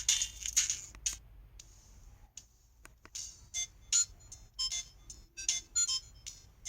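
LG-LB2900 mobile phone ringtones: one busy electronic tune cuts off about a second in, and after a short pause another begins about three seconds in with short, high, plinking notes.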